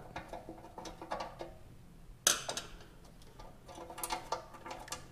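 Hand tool undoing a dress-up bolt on an intake heat shield in a car engine bay: a run of small metallic clicks and ticks, with a sharper knock about two seconds in.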